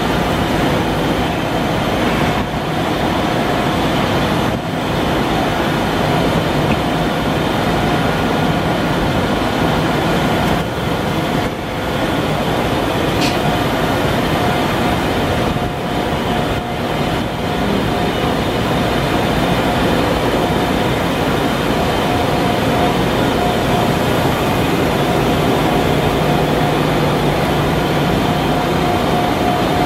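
Steady running noise of an automated CNC turning cell and its part-handling equipment, a constant whine over a broad mechanical rumble.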